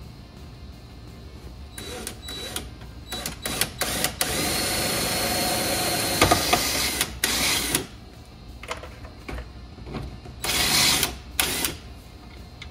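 Cordless drill run in short bursts, with one longer steady run of about two seconds near the middle, mounting a switch panel to the underside of a truck's dashboard.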